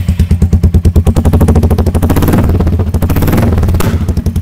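Royal Enfield Classic 350's single-cylinder engine idling with its exhaust silencer removed, running open-header: a loud, rapid, even beat of sharp firing pulses.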